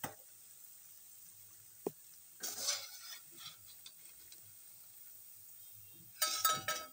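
Slotted steel spoon scraping and knocking against an iron kadhai while fried pakoras are lifted out of the hot oil, over a faint steady sizzle. A short knock comes about two seconds in, a scrape follows, and a louder metallic clatter with a ringing tone comes near the end.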